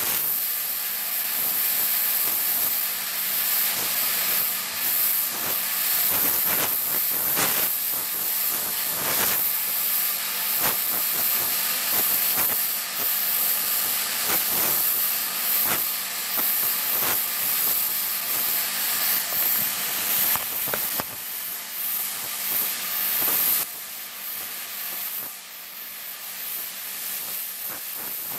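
High-pitched hissing sound from a highly directional speaker, its level flickering and wavering as hot air from a heat gun blown across the beam bends the sound away, over the heat gun's blower noise. The sound drops somewhat about 21 and 24 seconds in.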